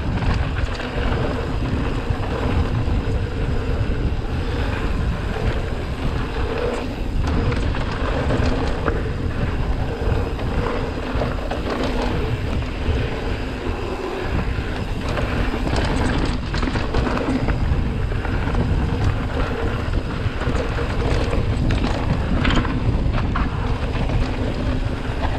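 Wind rushing over the microphone of a mountain bike ridden along a dirt trail, with the rumble of tyres and scattered clicks and rattles from the bike.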